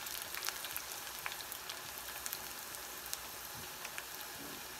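Corn tortilla wedges deep-frying in oil at about 350 °F in a saucepan: a steady sizzle with scattered small crackling pops.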